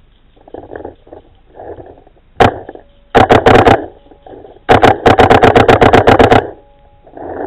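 Paintball marker firing: a single shot, then a quick burst of about five, then a rapid string of about fifteen shots at roughly eight a second.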